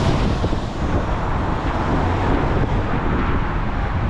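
Steady rumble of a moving sightseeing bus and street traffic, with wind buffeting the microphone.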